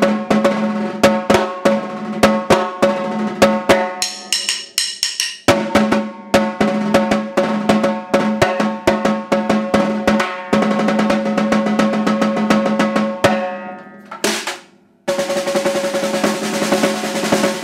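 Concert snare drum played with sticks: fast accented strokes mixed with rolls. Past the middle a roll fades away almost to silence, then a loud sustained roll starts about a second later.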